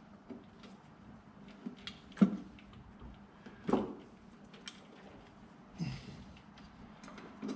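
Hands and tools working on engine-bay parts under the intake: a few sharp clicks and knocks a second or two apart, the loudest about two seconds in, with small ticks between.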